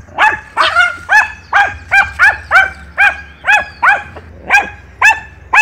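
Small dog barking rapidly and repeatedly, about two to three sharp barks a second, at a lizard it is confronting.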